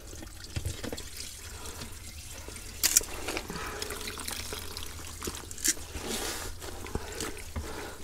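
Wet clothes being lifted out of a portable washing machine tub full of soapy wash water, water trickling and dripping back into the tub. There are small splashes as a hand works through the water.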